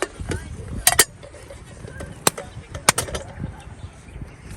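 A handful of sharp knocks or clicks at irregular spacing, two close together about a second in and another pair near three seconds, over a low rumble.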